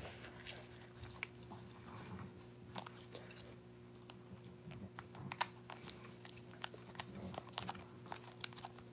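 Chewing gum close to the microphone: faint, irregular clicks and smacks of the mouth working, over a low steady hum.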